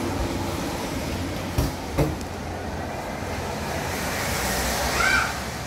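Steady low rumble of background noise, with two sharp knocks about one and a half and two seconds in, and a brief high squeak near the end.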